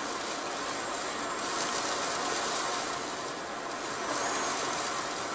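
Steady rushing noise of a coastal storm: wind-driven heavy rain and big surf breaking against rocks and a seawall.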